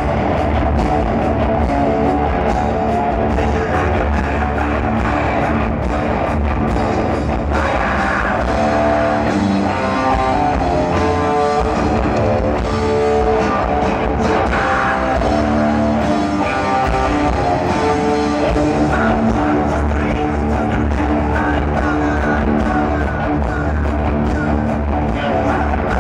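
Live rock band playing loudly: electric guitar riffing over a pounding drum kit, with some singing.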